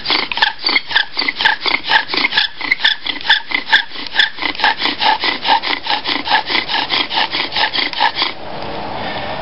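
Bow drill in use: the wooden spindle squeaks and rasps in the hearth board's notch with each stroke of the bow, about four strokes a second, working up smoke to feed an ember already formed. The strokes stop about eight seconds in, leaving a steady hiss.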